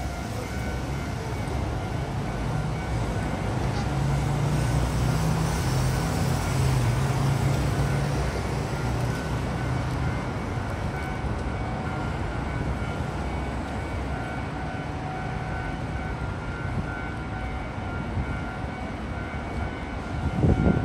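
City traffic noise: a steady hum with faint steady high tones, and a low vehicle rumble that swells from about four seconds in and fades by about ten. A few loud thumps come near the end.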